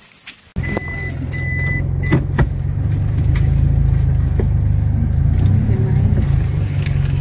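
Car engine running, a loud steady low hum heard from inside the cabin, starting suddenly just after the start. A high electronic warning chime beeps three times near the start, followed by two sharp clicks.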